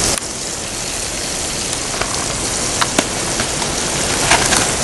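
Fish frying in a pan over a campfire: a steady sizzling hiss with scattered sharp pops.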